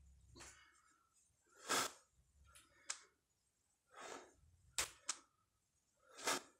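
A man breathing hard during barbell squats: three loud forceful breaths, one about every two seconds in time with the reps, with a few short sharp clicks between them.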